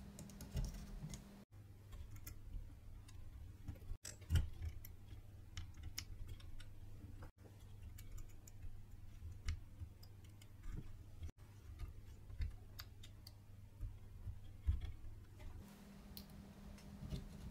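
Faint, scattered clicks and taps of small electrolytic capacitors being pressed by hand into a motherboard's through-holes, over a low steady hum.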